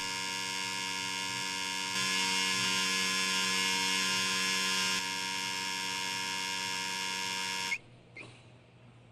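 Electrical mains buzz of a bare light bulb: a steady hum with many overtones that swells for a few seconds in the middle. It cuts off suddenly near the end as the bulb is put out, followed by a faint short chirp.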